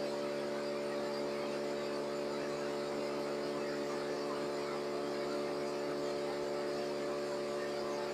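Maize milling machine running steadily, a constant hum with a rushing noise over it.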